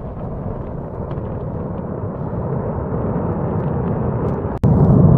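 Low, steady rumble of a large explosion and fire at a bombed weapons depot, with a few faint scattered pops. About four and a half seconds in it breaks off sharply and a louder rumble takes over.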